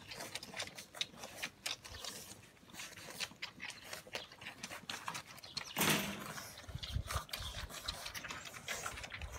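Brittany puppies suckling at their mother, with many irregular wet clicks and smacks. About six seconds in comes a short louder rustle, then a low rumble.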